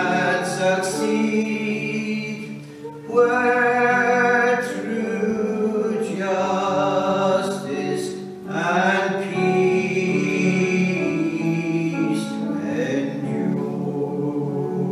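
Hymn singing over sustained instrumental chords, in sung phrases with short breaks between them.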